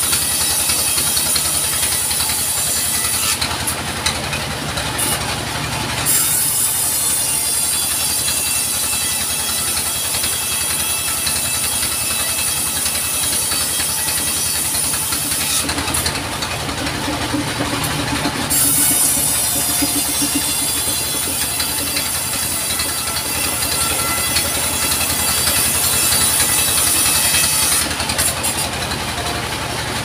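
Band sawmill running steadily, its blade cutting lengthwise through logs with a high whine. Three times the whine drops away for a couple of seconds.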